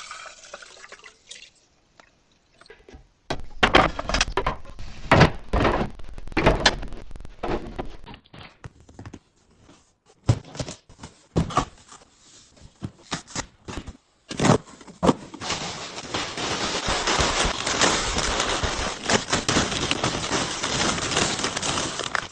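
Kitchen restocking handling: containers and packages knocked and set down in a string of separate clacks and thunks, then a steady rushing noise for the last six seconds or so, as of something being poured.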